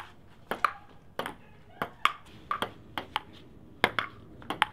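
Table tennis rally: the plastic ball clicks sharply off the paddles and the table, in quick pairs about every half second.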